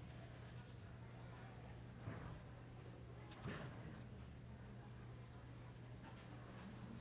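Faint scratching of a paintbrush working paint onto a canvas, with two louder strokes about two and three and a half seconds in, over a steady low hum of the hall.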